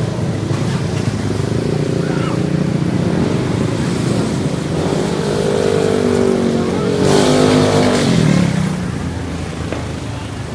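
Motor engines running, with one engine's pitch rising and falling as it passes close about seven seconds in, then fading.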